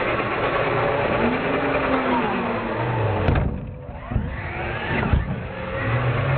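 Radio-controlled monster truck driving hard, its motor whine rising and falling as it revs. A couple of sharp knocks come about 4 and 5 seconds in as the truck hits and climbs a wooden ramp.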